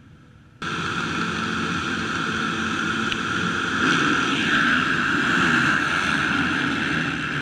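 A full field of motocross motorcycles starting a race, all engines at full throttle at once: the sound comes in suddenly about half a second in and holds as a dense mass of engines. It is loudest as the pack passes close by, a few seconds later.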